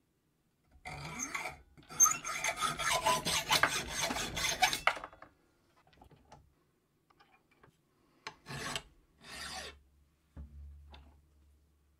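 Hacksaw cutting through a steel bar clamped in a bench vise, in a run of quick, even back-and-forth strokes. After a pause, two strokes of a flat file on the steel near the end.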